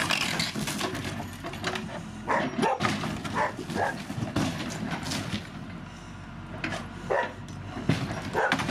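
A dog barks in short bursts, several times over a few seconds, over the steady low running of a Case backhoe's diesel engine.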